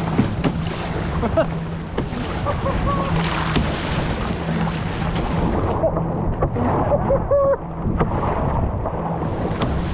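Rushing, churning water of the Shubenacadie River tidal bore's standing waves, splashing and slapping around an inflatable canoe as it rides through the rapids.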